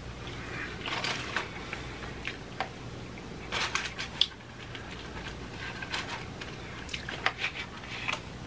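Paper fast-food wrappers crinkling and rustling as they are handled, in scattered bursts of crackles and clicks, with eating sounds near the end as food goes to the mouth. A faint low hum runs underneath.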